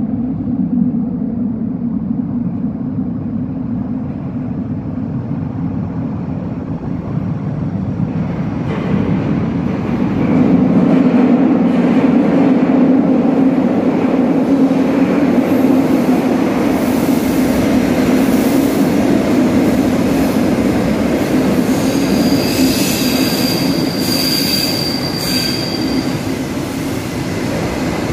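Astra IVA metro train approaching through the tunnel and pulling into the station: a steady rumble that grows louder from about ten seconds in, with a high-pitched squeal a few seconds before the end as it slows.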